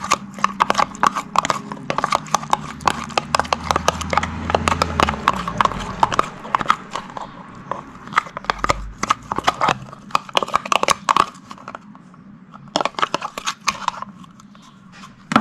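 Slime being squeezed and worked in the hands, giving a fast run of sticky clicks and pops. The clicking pauses briefly after about 11 seconds, then comes back in a short burst before stopping near the end.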